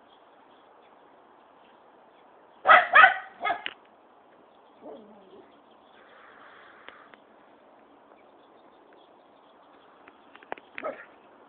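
Small dog barking territorially: a quick burst of three or four sharp barks about three seconds in, then one more short bark near the end.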